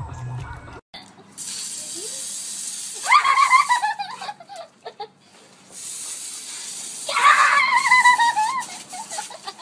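Garden hose spray nozzle hissing in two bursts of about three seconds each, with a young girl's high squealing laughter over each burst.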